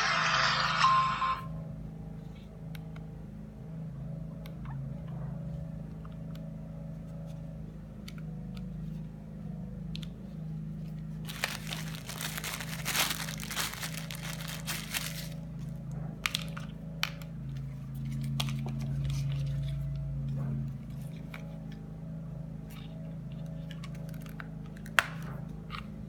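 Plastic packaging being handled: a few seconds of crinkling and tearing about halfway through, with scattered clicks and taps, over a low steady hum. Background music ends just after the start.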